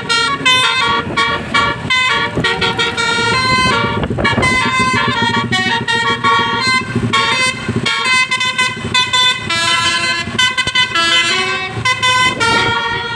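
Bus's basuri 'telolet' musical air horn playing a tune: a quick run of changing notes, several horn tones often sounding together.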